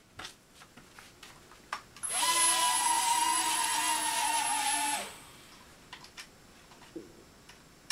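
Small toy quadcopter's electric motors spinning up with a rising whine, running steadily for about three seconds, then cutting off abruptly. Right afterwards the battery is asked about as dead again.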